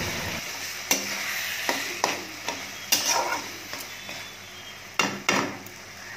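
Metal spatula stirring and scraping a thick mix of taro stems and fried hilsa fish head in a metal kadai, knocking against the pan about seven times at uneven intervals, the loudest knocks about three and five seconds in, over a low sizzle that dies down.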